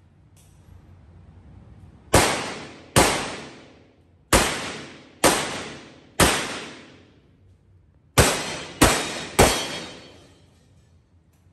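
Revolver fired eight times on an indoor range, each shot ringing off in a long echo. The first five come about a second apart; after a pause of two seconds, three more follow quickly, about half a second apart.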